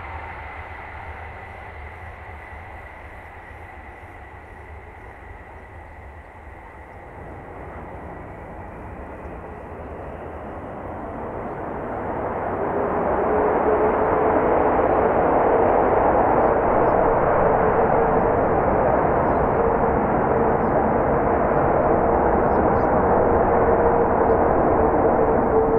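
Ilyushin Il-76's four jet engines, heard from behind as the airliner moves away down the runway. A faint high whine fades early on, then the noise swells sharply to a loud, steady rumble with a droning tone about halfway through as the engines are run up to takeoff power.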